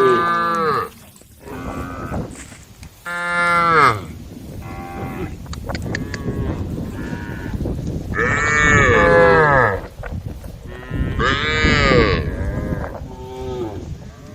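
Several cattle mooing in turn, calling to the herd. There are loud, drawn-out moos about three seconds in, at eight seconds and at eleven seconds, with shorter, quieter moos in between.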